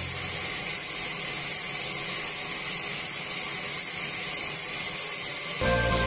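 A steady, even high hiss with little low end. Background music with a beat comes back in near the end.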